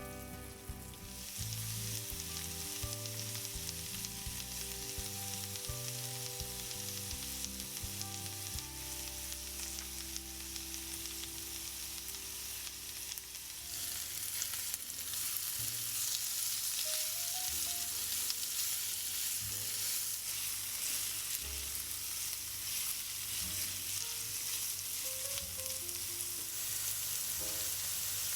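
Food sizzling as it fries in a pan, starting about a second and a half in and growing louder just past halfway. Soft background music plays under it for roughly the first half.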